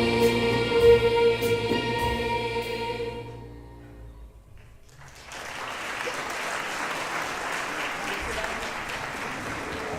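High school choir holding a chord that fades out about three and a half seconds in. After a short pause, audience applause starts about five seconds in and carries on steadily.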